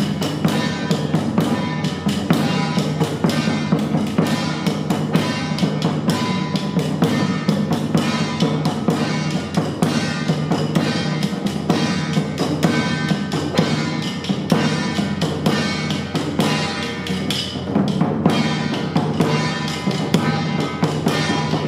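Temple ceremony music, with drums and other percussion struck in quick, dense strokes over a sustained melody.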